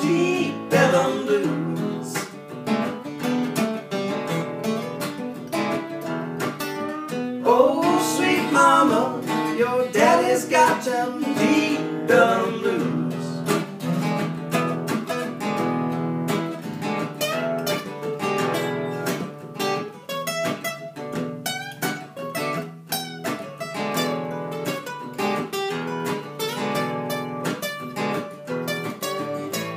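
Two acoustic guitars strummed and picked together in a traditional folk blues tune.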